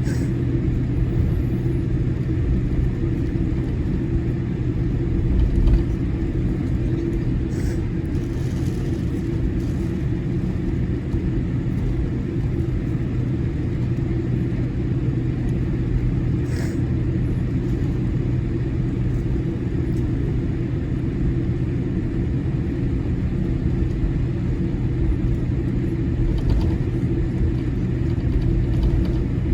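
Steady low cabin rumble of a Boeing 787-8 Dreamliner taxiing, with a constant hum under it and a couple of faint clicks.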